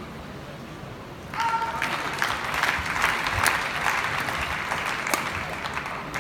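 Arena crowd applauding, starting about a second in and going on steadily. A few sharp racket strikes on the shuttlecock and a brief shoe squeak from the badminton court come through it.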